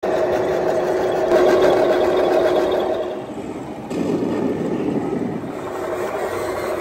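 Radio-controlled scale model tanks running, a steady mechanical whine and engine-like drone from their drives. The sound changes abruptly about four seconds in, to a rougher drone.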